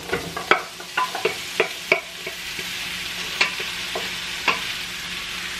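Raw shrimp poured from a stainless steel pot into a hot oiled frying pan, sizzling as they hit the oil. A string of sharp clicks and taps comes over the first two seconds, with a couple more later, and a steady hiss of frying fills in from about two seconds in.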